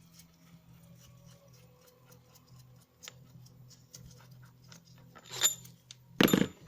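Metal tool and bolt handling on a Delphi CA3 AC compressor during disassembly: light scattered clicks, then two sharp ringing metal clinks near the end, the second the loudest. A low steady hum runs underneath.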